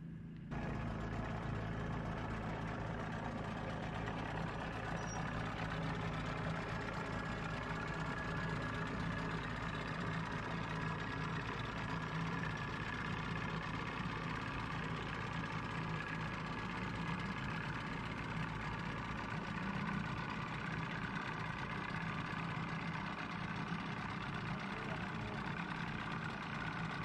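An engine running steadily at idle: a low, even hum that holds without change.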